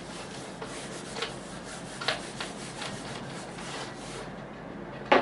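Felt whiteboard duster rubbing over a whiteboard, wiping off marker writing in back-and-forth strokes; the rubbing dies down about four seconds in. A single sharp click comes at the very end.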